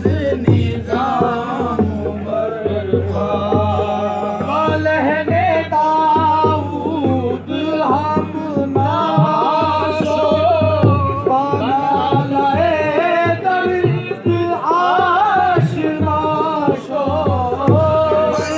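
Qawwali: a voice singing long, wavering devotional lines over tabla drumming.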